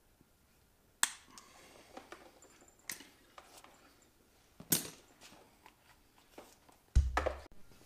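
Wire cutters snip through a wire about a second in. Scattered sharp clicks and rustling follow as the wiring and hand tools are handled, with a dull thump near the end.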